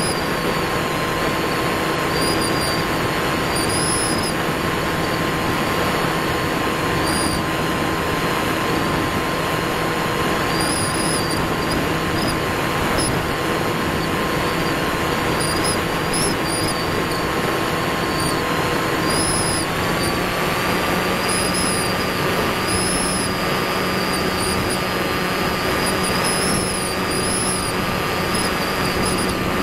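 Electric motor and propeller of a C1 Chaser FPV model plane running steadily, heard on board as a hum of several steady tones over rushing airflow noise. The hum's pitch steps up slightly about two-thirds of the way through.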